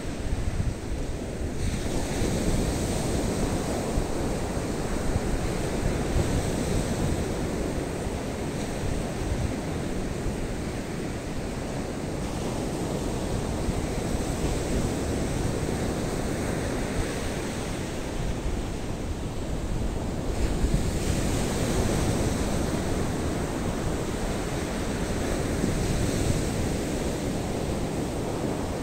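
Surf breaking on a sandy beach in a rising sea, its noise swelling and easing as waves come in, with wind rumbling on the microphone.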